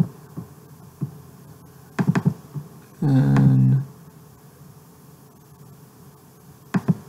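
A man's voice holding a drawn-out hesitation sound for under a second, about three seconds in. Scattered short clicks and knocks come from working the computer, with a cluster about two seconds in and another near the end.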